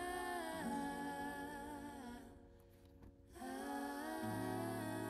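Background music: a singer humming long, held notes without words over a soft backing. The music dips briefly about two and a half seconds in, then the humming picks up again.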